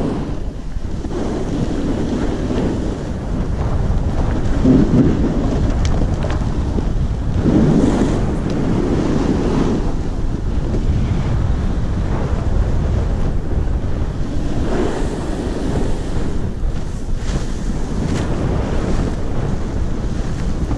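Wind buffeting the microphone of a camera riding fast down a snow slope: a loud, steady low rush that swells about five seconds in and again around eight seconds in.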